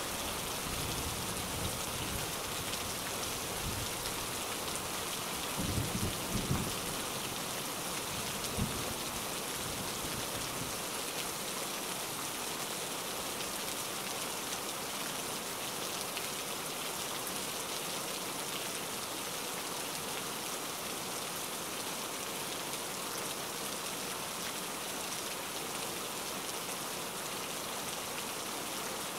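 Recorded rain ambience: a steady, even hiss of rainfall, with a few low rumbles of thunder during the first ten seconds.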